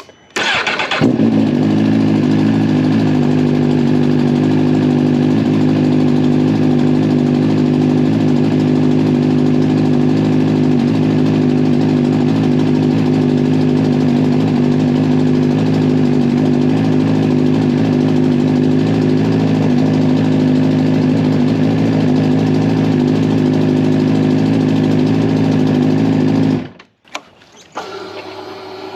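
2023 Suzuki GSX-R1000's inline-four engine starting and idling steadily. About half a second in it comes in suddenly. It holds an even idle with no revving, then stops abruptly a couple of seconds before the end, leaving a short, quieter stretch.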